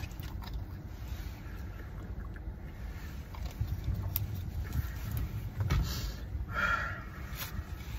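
Steady low rumble inside a car, with small clicks and handling noises. There is a thump just before six seconds in and a short rushing sound soon after.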